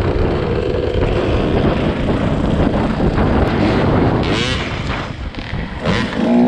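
Two-stroke Husqvarna dirt bike being ridden, its engine revving up about four seconds in and again near the end, with wind buffeting the microphone.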